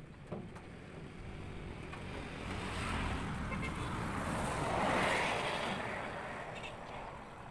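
A road vehicle passing by: a broad noise builds, is loudest about two-thirds of the way in, then fades away.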